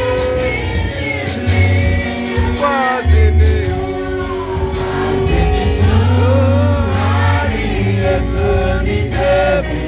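Gospel worship song: several voices singing over a heavy bass line that moves in held notes.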